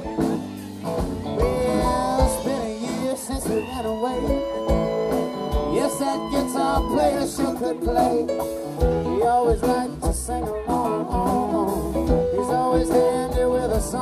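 Live rock band playing loudly through a PA: electric guitars, bass guitar and drums, with singing, and a few long held notes about halfway through.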